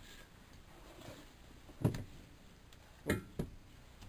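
Three short knocks: one about two seconds in, then two close together a little after three seconds.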